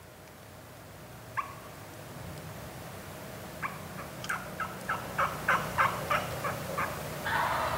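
Turkey yelping: one note about a second and a half in, then a run of about a dozen short yelps at three or four a second that grow louder and then tail off. A brief rustle follows near the end.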